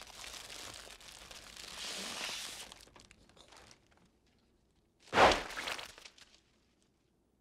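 A paper airsick bag crinkling as it is handled, then popped with a single loud bang about five seconds in.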